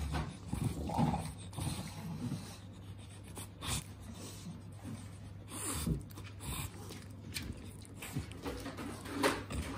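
English bulldog panting and licking the last taste of sweet potato off a person's hand, with scattered short licking sounds.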